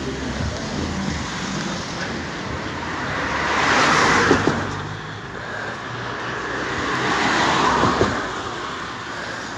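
Two cars passing on the road beside the bridge footway, their tyre and road noise swelling and fading, the first about four seconds in and the second about seven seconds in.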